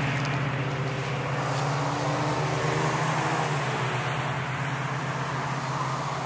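Highway traffic: a passing vehicle's steady low drone that slowly fades towards the end.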